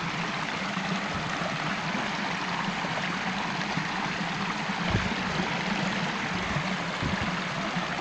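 A small stream splashing and trickling steadily down over stones.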